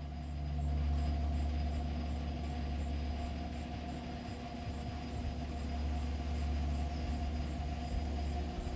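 Lau Ultra 20 box fan running on its low setting: a steady low motor hum and vibration with a faint higher tone over it, a weird motor sound from a motor that had been seized and now turns freely.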